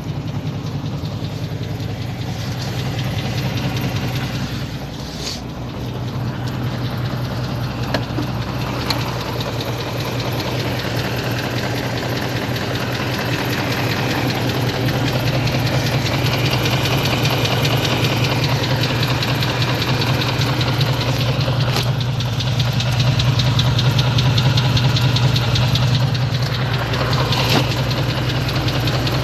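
BMW X5's M62 V8 engine running with a knock, which the owner takes for a knocking piston pin.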